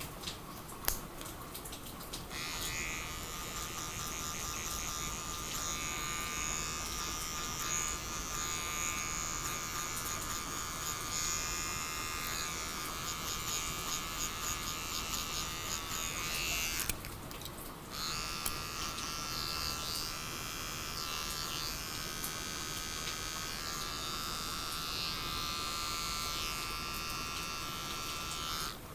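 Electric hair clippers buzzing as they cut hair. They switch on about two seconds in, pause briefly about 17 seconds in, then run again until just before the end.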